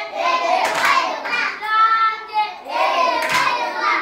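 A group of children singing together, with a couple of sharp hand claps in the song.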